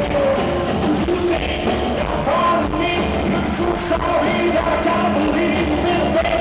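Rock band playing an acoustic set live.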